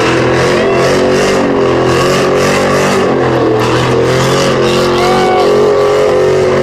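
Chevy Silverado engine breathing through a Borla ATAK performance exhaust with headers, held at high revs. The loud exhaust note stays fairly steady in pitch with small dips.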